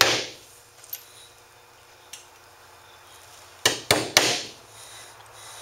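Hammer tapping nails into a beaver hide stretched on a wooden board, tacking the leg hole shut: one blow at the start, then three quick blows about three and a half seconds in.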